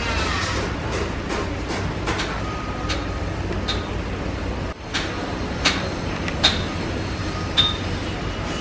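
Irregular sharp metallic clinks, roughly one a second, each with a brief high ring and the loudest three near the end, over a steady background hiss: a hammer striking metal on a building site.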